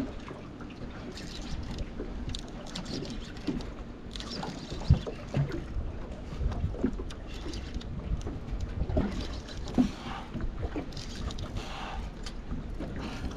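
Steady low rumbling noise of a small boat on the water, with scattered short knocks and clicks.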